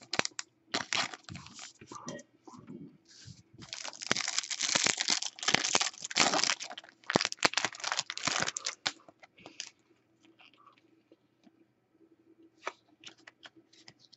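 Paper and plastic rustling, crinkling and tearing as football trading cards are slid into a plastic sleeve, a pack is opened and the cards are handled. It is dense for about the first nine seconds, then drops to a few light clicks and rustles.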